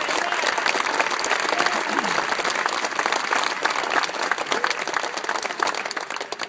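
An audience of many people applauding, a dense steady clatter of hand claps that fades away near the end.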